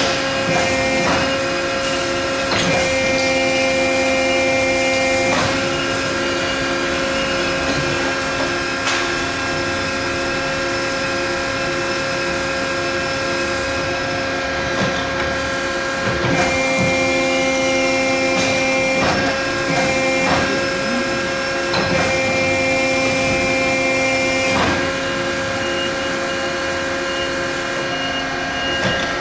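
Ercolina CNC mandrel tube bender working through a bend cycle. Its steady motor whine changes pitch each time a new stage starts, with sharp mechanical clunks at each change.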